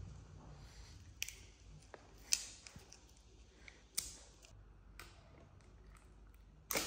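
Handling noises: about five scattered sharp light clicks and taps of small plastic jelly cups and a snack bag being handled, the loudest a little over two seconds in and another near the end.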